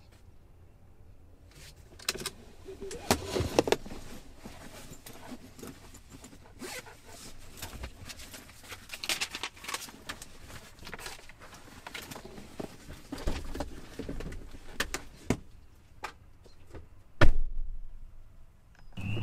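Rustling of paper and small clicks and knocks of things being handled and shifted inside a car's cabin, followed near the end by one loud thump of a car door being shut.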